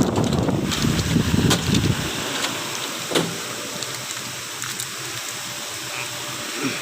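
Rumbling handling noise for about two seconds, then a steady hiss with a few sharp clicks, from hands working on a car's auxiliary battery hookup.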